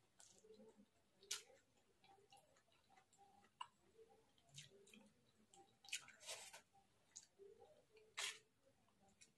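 Faint eating sounds: a steel fork clicking and scraping on a metal plate as noodles are twirled, a few sharp clicks and short scrapes among quiet chewing.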